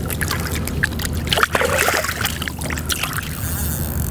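Water splashing and sloshing in short, irregular bursts as a carp is released by hand into the water at the bank's edge.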